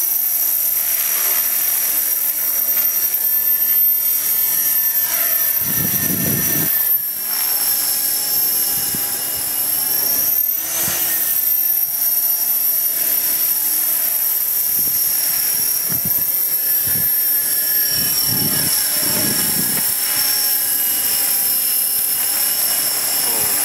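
Electric KDS 450SV RC helicopter in flight: a steady high whine from its motor and rotor that dips briefly in pitch twice. Wind buffets the microphone in low rumbling gusts.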